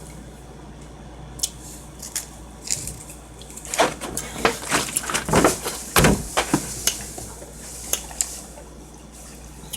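Close-miked wet chewing and lip-smacking while eating sushi: scattered smacks at first, then a quick run of loud wet clicks in the middle, the loudest about six seconds in.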